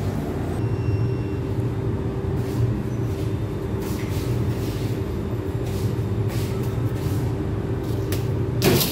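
Steady low mechanical hum of pizzeria kitchen machinery, with a steady higher tone above it. Scattered light clicks and knocks from work at the counter come through it, the loudest near the end.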